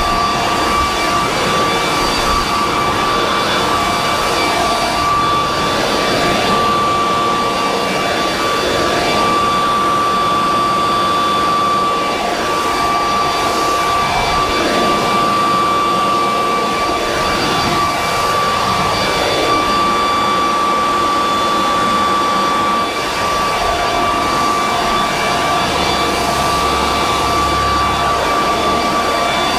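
Leaf blower running steadily at full power, a loud rushing blast of air with a steady high fan whine, blowing debris and loose paint chips off a deck.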